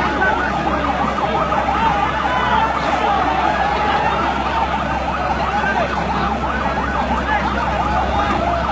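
The din of a large crowd of men shouting and calling out all at once, many voices overlapping, over a steady low hum.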